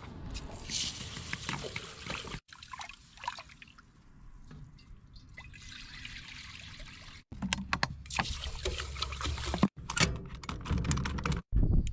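Water poured from a bucket and sloshed about in a cooking pot as it is washed, with some knocks of the pot in the second half. The sound breaks off abruptly several times where short clips are joined.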